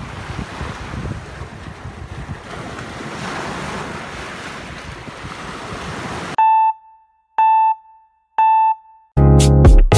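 Sea waves washing and breaking over a rocky shore, with wind buffeting the microphone. About six seconds in this cuts off suddenly to three short electronic countdown beeps about a second apart, and music with a strong beat starts near the end.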